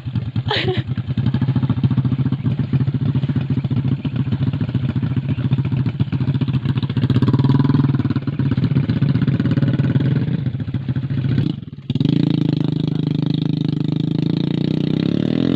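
Motorcycle engine running steadily with a fast, even firing pulse, with a brief sharp dip in loudness about twelve seconds in before it runs on.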